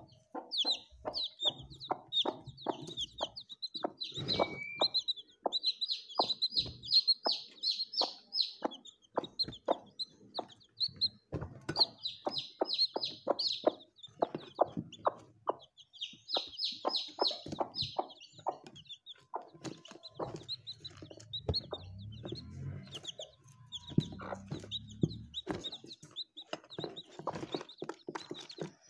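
Newly hatched native country chicks (naatu kozhi) peeping in quick high runs that come in louder bursts, with the mother hen clucking among them.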